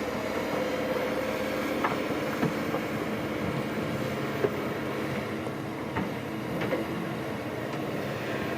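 Diesel engine of heavy earth-moving machinery running steadily, with a few short knocks and clanks scattered through it.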